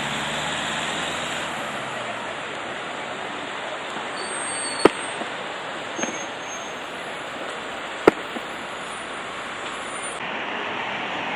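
Road traffic passing close by: steady tyre and engine noise from cars, with one car's engine hum fading away in the first couple of seconds. Two sharp clicks stand out, about five and eight seconds in.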